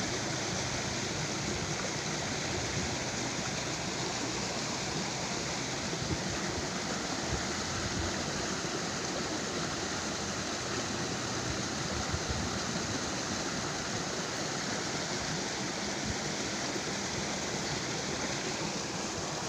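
Steady rushing of flowing water from a stream or river, an even hiss with no break.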